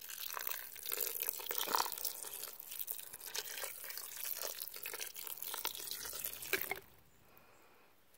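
A stream of water poured into chili in a cast iron Dutch oven, splashing into the sauce; it stops suddenly after about seven seconds.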